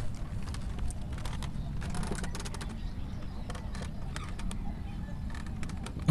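Low rumble of wind on the microphone with scattered sharp clicks and ticks, and a short sharp knock right at the end.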